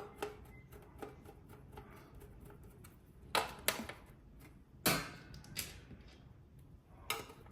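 Handling noise from hard parts being worked by hand: about five sharp clicks and knocks spread over a few seconds, over a low steady background hum.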